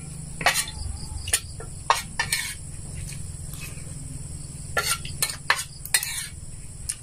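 Metal spoons clinking and scraping against plates while eating, in scattered sharp clicks: a cluster in the first couple of seconds and another about five seconds in.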